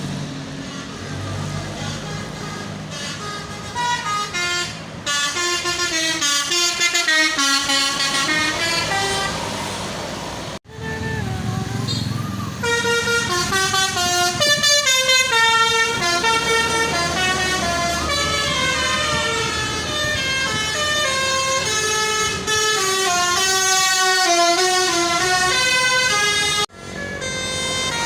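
Indonesian bus 'telolet' horns (Basuri multi-tone air horns) playing quick melodic tunes of short stepping notes over a running bus engine, in several separate clips cut together: one break about ten seconds in and another near the end.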